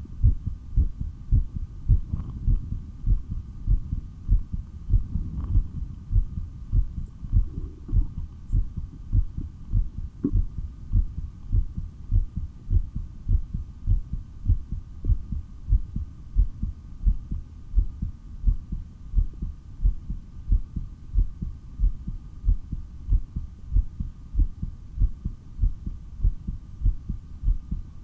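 A person's own heartbeat picked up through a stethoscope: steady, regular low thumps with a faint steady hum behind them.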